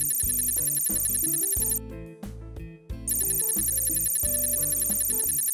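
Cartoon background music: a fast, high ringing trill over a steady bass line and short mid-range notes, breaking off for about a second midway and then starting again.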